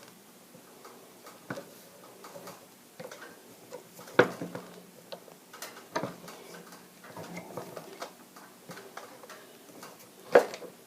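Irregular clicks and creaks of a 1/2-inch thread tap being turned by hand into a soft lead water pipe, cutting threads. There are sharper knocks about four and six seconds in and near the end.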